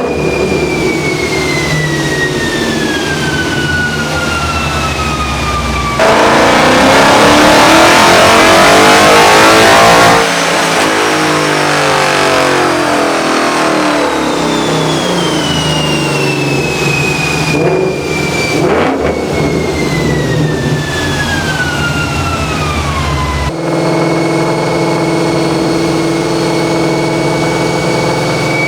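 A full-bolt-on Ford Mustang GT's 5.0 V8, tuned for 93-octane, running on a chassis dyno. A whine falls slowly in pitch. Then comes a loud, hard pull from about six to ten seconds in, the whine falls again as the car winds down, and near the end it settles into a steady hum.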